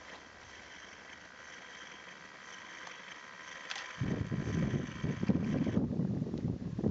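Wind buffeting the microphone: a loud, gusting low rumble that starts suddenly about four seconds in, after a faint steady hiss.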